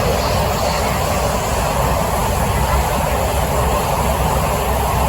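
Interior running noise of a Kawasaki–CRRC Qingdao Sifang C151A electric train carriage between stations: a steady rumble and rolling noise.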